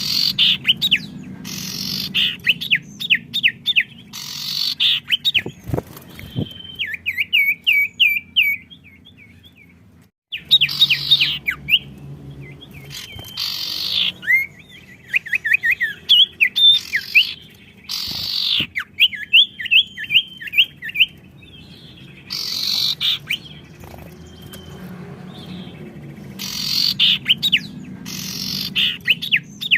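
Songbirds chirping and singing in quick series of short notes, answering one another in turns, with harsher loud bursts between the trills. The sound drops out briefly about ten seconds in.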